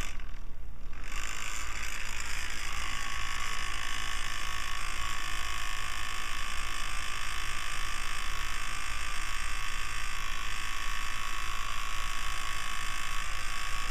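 Small electric fan running steadily, its motor buzzing.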